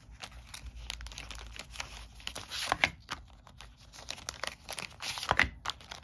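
Plastic wrapping on a pack of game cards crinkling and tearing as it is pulled open by hand: a run of irregular crackles, with louder crackles about three seconds in and near the end.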